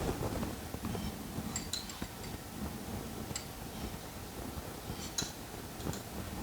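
A few faint, light metallic clicks and clinks, about three over several seconds, from small measuring tools being handled while taking a squish reading on a chainsaw engine, over a low steady background rumble.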